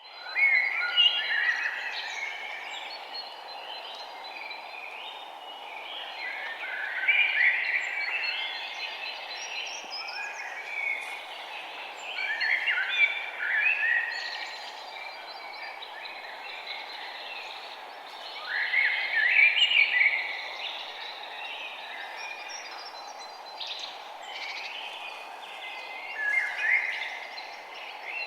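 Several small birds chirping and trilling, in louder bursts of song about every six seconds, over a steady background hiss.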